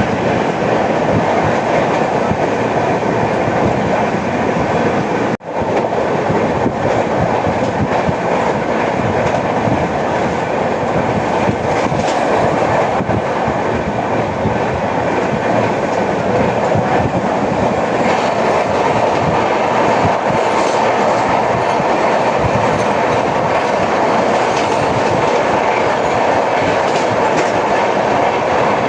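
Passenger train coaches running at speed, wheels clattering over the rails in a steady, loud rush. The sound drops out for a moment about five seconds in.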